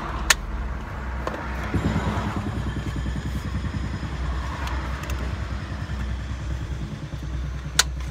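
Hand pipe cutter clicking through low density polyethylene polypipe: two sharp snaps, one just after the start and one near the end, over a steady low engine hum.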